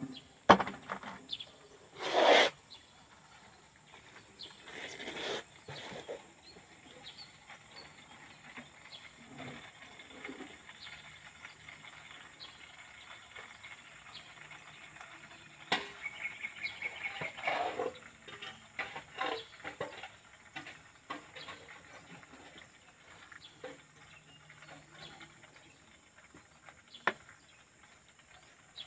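Transmission oil draining from a John Deere 5715 tractor in a thin stream into a plastic bucket, a faint trickle. Scattered knocks and clicks break it, the loudest about two seconds in and a cluster around sixteen to eighteen seconds in.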